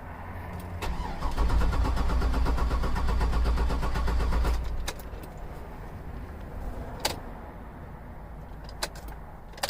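The 6.0-litre V8 of a 2005 Cadillac Escalade cranking on the starter with a steady rhythmic pulse for about four seconds without catching, then stopping. This is a crank-no-start with no fuel pump heard, which is taken for a failed fuel pump. A few sharp clicks follow.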